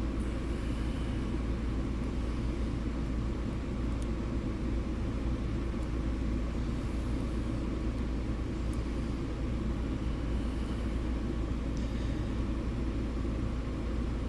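Steady low rumble throughout, with a few faint clicks of a hook pick and tension tool working the pins of a Brady lockout-tagout padlock.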